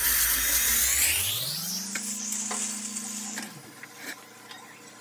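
Dental cleaning instruments at work: the polishing handpiece and the saliva ejector's suction give a hiss that fades about a second in. A motor hum then rises in pitch, holds steady and stops about three and a half seconds in.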